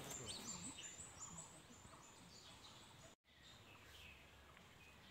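Faint outdoor ambience with small birds chirping: a quick series of high, short, falling chirps in the first second and a half, then scattered fainter chirps. The sound drops out completely for a moment about three seconds in.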